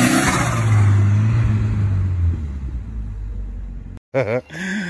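Ford Escort RS Cosworth's turbocharged four-cylinder engine pulling past on a light throttle, then fading as the car drives away. The sound cuts off about four seconds in, and a man starts talking.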